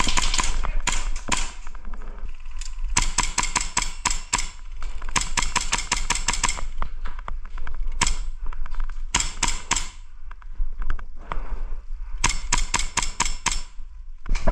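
Airsoft gun firing in rapid bursts of sharp snapping shots, about six bursts of roughly a second each with short pauses between.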